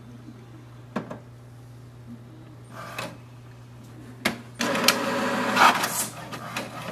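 HP DeskJet 2842e inkjet printer starting a test print: a few separate clicks, then about four and a half seconds in the print mechanism starts up and runs loudly with rapid clicking and whirring.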